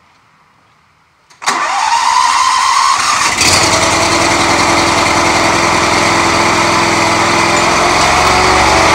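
Ferris SRS Z2 stand-on mower's Briggs & Stratton engine starting from cold: it cranks and catches suddenly about a second and a half in with a rising pitch, then settles into a steady run from about three and a half seconds in, left running to warm the oil.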